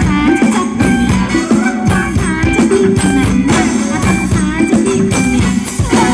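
Live band playing Thai ramwong dance music: a steady, loud percussion beat with shaker and tambourine-like strokes under a bending, ornamented melody.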